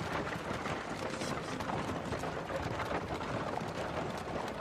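Hoofbeats of horses drawing a wooden-wheeled carriage over dry ground, mixed with the footsteps of a crowd on foot: a steady clatter of many irregular taps.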